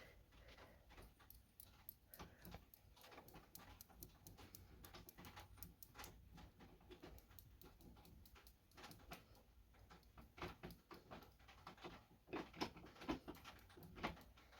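Near silence: room tone with faint scattered small ticks, and a few slightly louder soft noises in the last few seconds.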